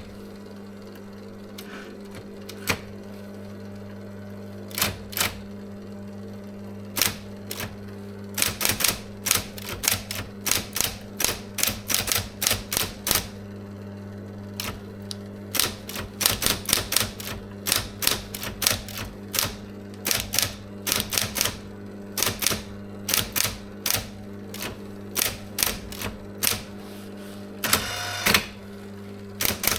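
SIGMA SM 7800 K electric typewriter being typed on: sharp key strikes, a few spaced ones at first, then a quicker, uneven run of typing. Its motor hums steadily underneath, and a longer rattle comes near the end.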